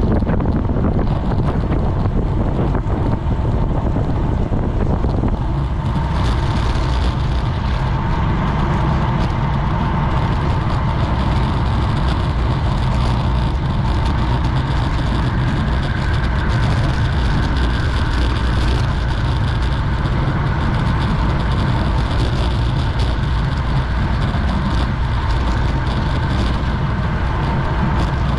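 Wind buffeting a cyclist's GoPro microphone at racing speed, a steady low rumble with a rushing hiss that grows stronger about six seconds in.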